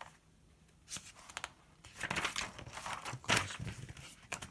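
Paper rustling as a spiral notebook and a paperback book are handled and shifted on a desk, in several short swishes, the loudest just after three seconds in.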